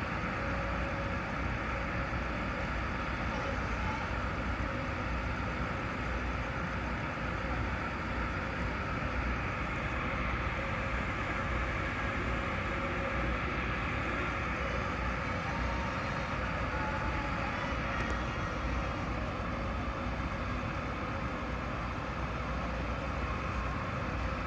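Steady low engine rumble with a constant outdoor noise haze.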